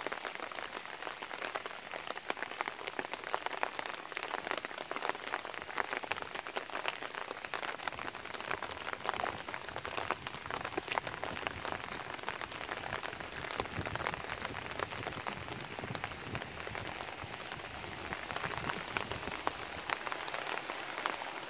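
Gentle, steady rain falling, a dense patter of many small drops on surfaces.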